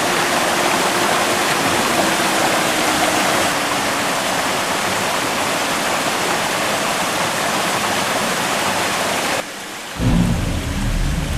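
Small mountain stream cascading over rocks in a little waterfall: a steady rushing of water. The water sound cuts off suddenly just before the end, and music begins.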